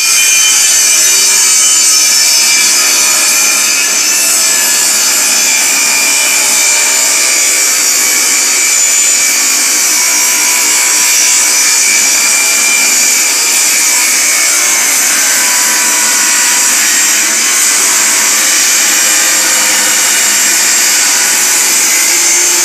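Benchtop table saw running and ripping a long pallet slat lengthwise on a bevel, its blade tilted to 18 degrees: a loud, steady cutting noise of the blade in the wood.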